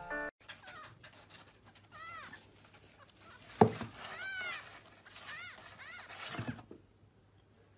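A kitten mewing: a series of short, high-pitched mews that rise and fall. Two thumps are heard in between, the louder one about midway.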